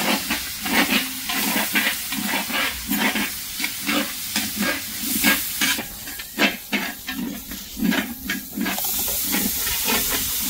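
Food frying and sizzling in a big pot while a large spoon stirs and scrapes it, about two strokes a second. The sizzle settles into a steadier hiss near the end.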